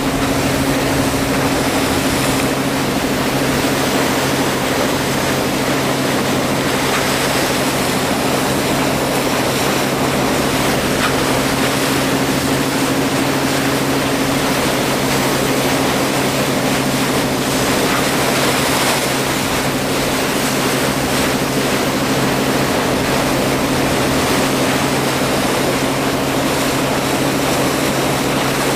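A boat's engine running at a steady speed, a constant low hum, with the rush of water along the hull.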